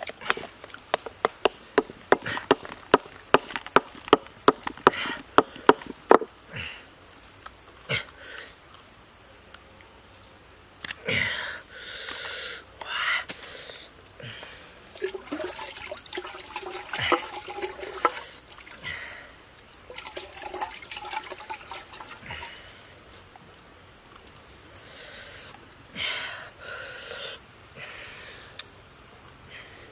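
A knife tapping and knocking on a raw oyster shell to pry it open: a quick run of sharp taps, about three to four a second, for the first six seconds, then scattered clicks and scraping of shell. A steady high insect drone runs underneath.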